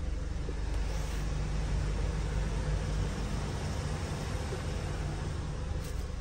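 Vehicle on the move: a steady low engine and road rumble under an even hiss of road or wind noise.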